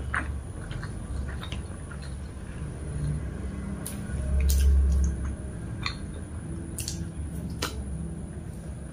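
A person chewing satay close to the microphone, with wet mouth sounds and a few sharp little clicks, over a steady low hum. A louder low rumble swells for about a second near the middle.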